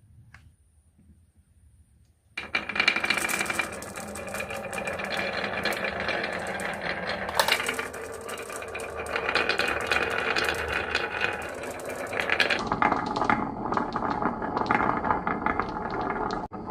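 Many marbles clattering and clicking as they roll down a wooden HABA marble run slope, starting suddenly about two seconds in as a dense, continuous rattle.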